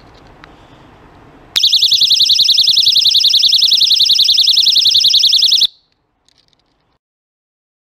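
Keychain personal safety alarm sounding: a loud, high-pitched, fast-warbling siren set off by pulling its pin. It starts abruptly a second and a half in and cuts off suddenly about four seconds later.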